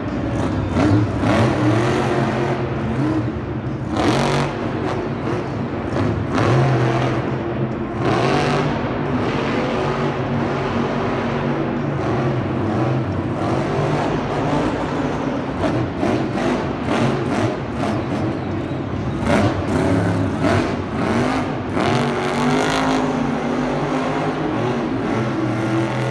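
A vehicle engine running and revving, its pitch rising and falling.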